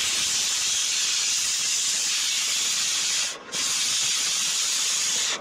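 Oxyacetylene cutting torch hissing steadily as its oxygen jet blows through a steel bolt, briefly dropping out about three and a half seconds in.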